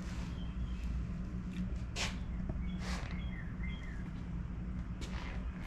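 A few faint, short bird chirps over a steady low hum, with a couple of brief knocks about two and three seconds in.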